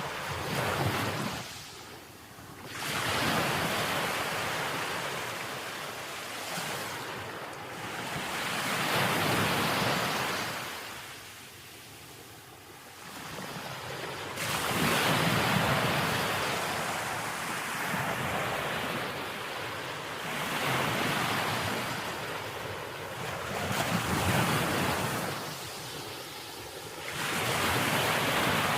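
Ocean waves breaking, the surf swelling and fading in slow surges every few seconds.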